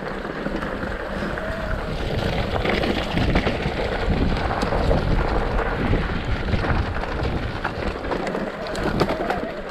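Wind rushing over the microphone of a bicycle on a fast trail descent, with tyre noise and scattered clicks and rattles from the bike.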